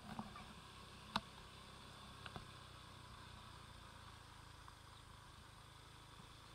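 Near silence: a faint steady background, with one sharp click about a second in and two faint ticks a little after two seconds.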